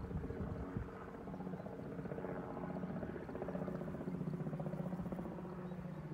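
A distant vehicle passing: a steady hum with a fast, even pulse, growing louder to a peak about two thirds of the way through and then easing off.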